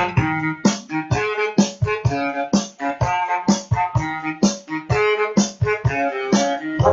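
Instrumental music led by piano or electric keyboard, a quick run of separate notes at a steady pace.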